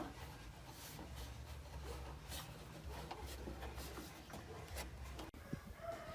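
Faint, irregular rubbing strokes over a low, intermittent hum.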